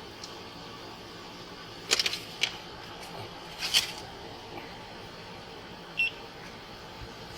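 Steady hiss with a few sharp clicks and rustles about two seconds in and again near four seconds, then one short high beep about six seconds in.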